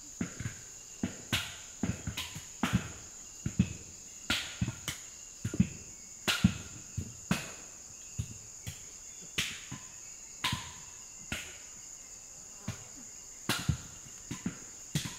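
Steady high-pitched insect drone with irregular sharp knocks and taps, about two a second, some much louder than others.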